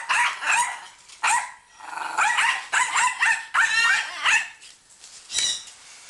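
Puppy barking and yipping in a rapid run of short, high-pitched barks, about two a second, then a last bark after a short pause.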